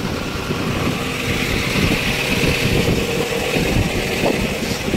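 A vehicle engine running steadily nearby, a low rumble with a hiss that swells in the middle.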